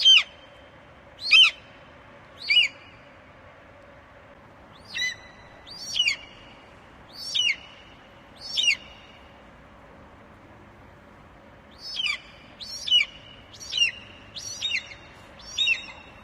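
Eagle calling: short, high cries that slur downward in pitch, coming in groups of three, then four, then five, with pauses of a few seconds between groups.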